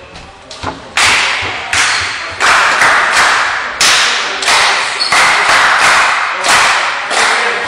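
Loud rhythmic clapping that starts about a second in, roughly one and a half sharp claps a second. Each clap rings on in the large gym hall.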